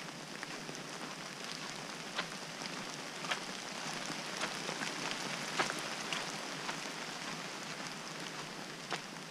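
Rain falling on the forest: a steady hiss, with sharp ticks standing out about once a second.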